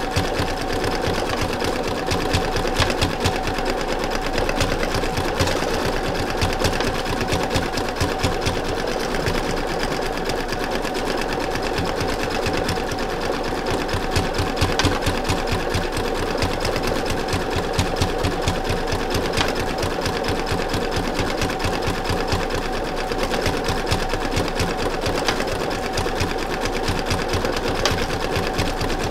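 Sewing machine running steadily, stitching coils of fabric-covered rope together as the side of a rope bowl is built up, with a fast even needle rhythm over a constant motor hum.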